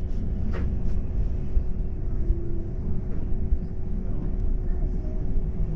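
City bus in motion: a steady low rumble of drivetrain and road noise with a constant hum over it, and a couple of faint clicks in the first second.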